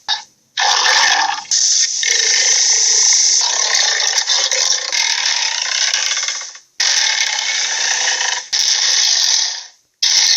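A string of gorilla sound effects: harsh, noisy growling and roaring calls, about five separate clips that start and stop abruptly, the longest running about five seconds.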